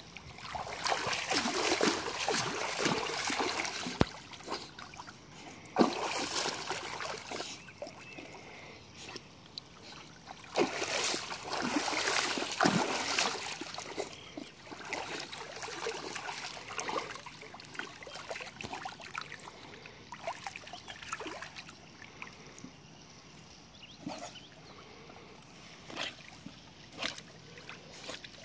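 Water splashing and sloshing as a pug dog-paddles through a swimming pool, in spells that swell and fade, louder in the first half and quieter with a few short splashes near the end.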